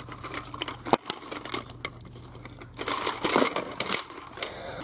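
Plastic packaging crinkling and rustling, with irregular sharp clicks, as hanging store merchandise is handled on its display hooks; the rustling is busiest between about three and four seconds in.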